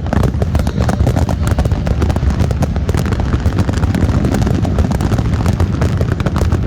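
Aerial fireworks finale barrage: dense, rapid bangs and crackles over a steady low rumble, without a break.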